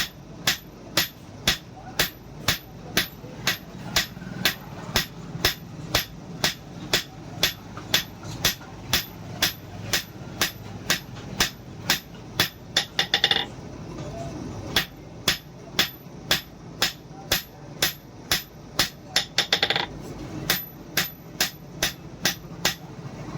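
Hammer striking steel on an anvil in a steady rhythm, about two blows a second, each blow ringing high. The hammering breaks off briefly twice, about halfway through and again about three-quarters of the way in.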